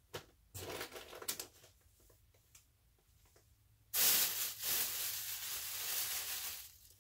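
Thin plastic bags rustling and crinkling loudly for nearly three seconds as hands rummage in them, starting suddenly about four seconds in. Softer rustling of clothes being handled in a box comes earlier.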